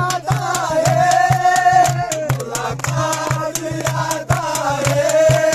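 Background music for the closing credits: a song whose long held melody line wavers in pitch, set over a steady percussive beat.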